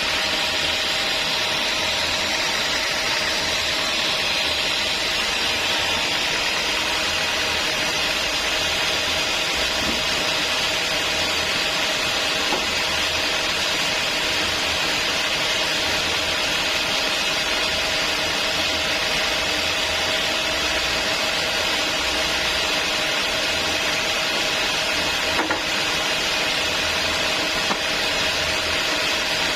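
Sawmill saw running steadily through a large log: an even, unbroken noise with a faint constant tone beneath it.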